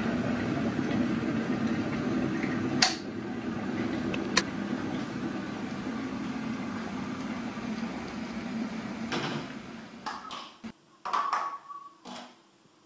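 A steady hum with a rushing noise, broken by two sharp clicks, fades away about nine seconds in. After it come a few light clinks and knocks of a mug, a jar and a spoon being handled on a kitchen counter.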